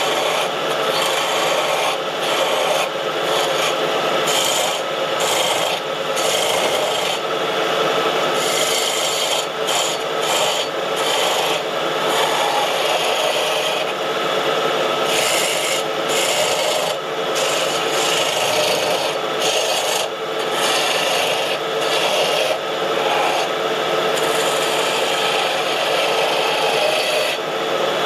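A pine blank spinning on a wood lathe while a hand turning tool cuts into it. The shaving and scraping of the cut runs on continuously and swells and eases as the tool is worked along the wood.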